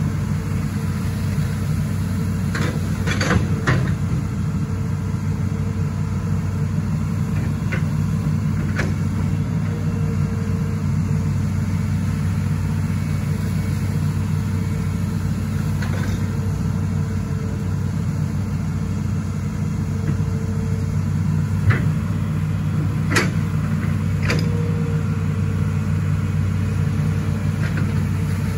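Hitachi Zaxis 210 F amphibious excavator's diesel engine running steadily while it digs, with a few sharp knocks from the working bucket and arm, a cluster about three seconds in and a few more in the second half.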